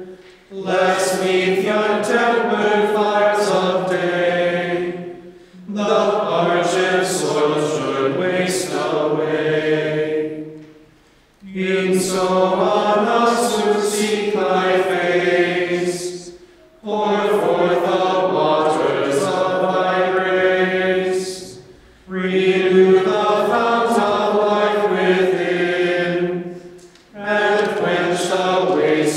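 Choir singing Gregorian chant: six sung phrases of about five seconds each, each followed by a brief pause for breath.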